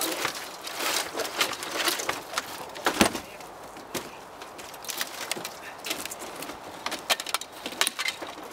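Knocks and clatter of a loose board cover being worked off a window opening in an old vehicle's body and handled, with one louder knock about three seconds in.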